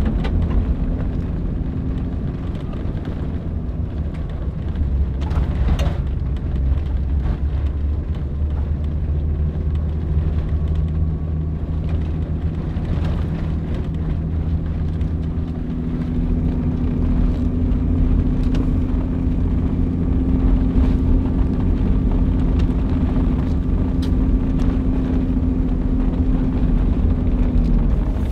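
Toyota Land Cruiser 80 series driving at low steady speed, heard from inside the cabin: a steady engine hum with tyre and road noise, the engine note growing a little stronger about halfway through.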